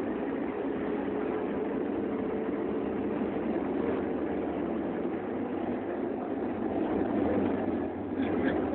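Scania K310 city bus heard from inside the cabin while under way: a steady engine drone with road noise. A few short, sharp sounds come near the end.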